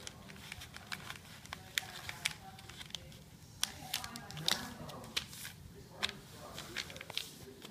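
Paper crinkling and rustling as a long strip of paper is folded and creased by hand, with many short, irregular crackles and taps as fingers press it flat against a wooden floor.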